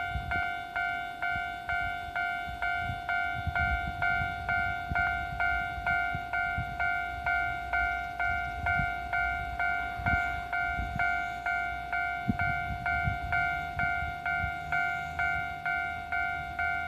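Japanese level-crossing warning bell ringing steadily at about two electronic dings a second. Underneath, the low rumble of KiHa 11 diesel railcars at the crossing, with a few wheel knocks over rail joints and a steady engine hum from about two-thirds of the way in.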